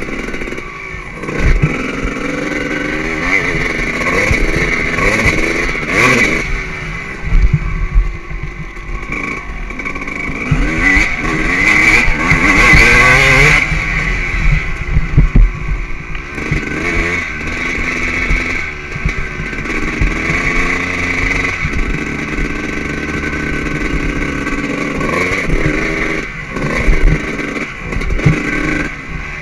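2003 Suzuki RM 250's two-stroke single-cylinder engine heard from on board while the bike is ridden hard: the pitch climbs through each gear and drops back at shifts and corners, over and over. Short knocks and clatter from the bike hitting bumps come through alongside.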